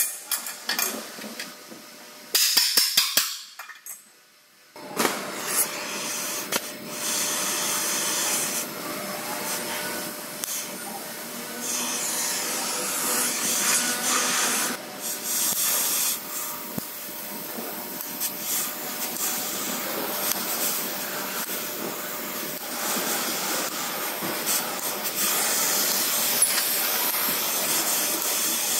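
Oxy-fuel gas torch burning with a steady hiss, its flame heating a bent chassis frame beam so the beam can be straightened. The hiss starts suddenly about five seconds in, after a few sharp metal knocks and some clatter.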